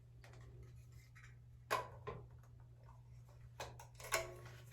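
A few light plastic clicks and knocks as a wide-tooth comb attachment is handled and pushed onto a hair dryer's nozzle, the dryer switched off, under a faint steady hum.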